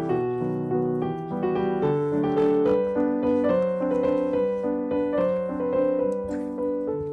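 Background piano music: a melody of notes changing about every half second.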